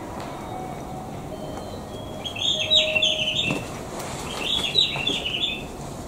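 Bird-like chirping: two bursts of quick high chirps, each just over a second long, about a second apart, over a steady low background hum.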